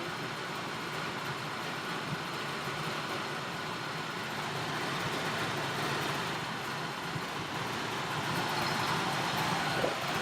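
Air-conditioning unit running in test mode, a steady mechanical whir of compressor and fan that grows slightly louder in the second half.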